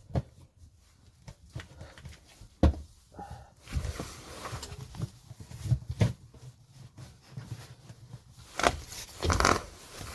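Sump pump parts and fittings being handled and fitted together: scattered knocks and clicks, with rubbing and scraping that is loudest about two thirds of the way through.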